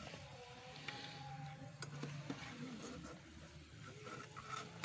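Potato chips frying faintly in hot ghee in a steel pan, with a few light clicks of a metal spoon against the pan as the browned chips are lifted out.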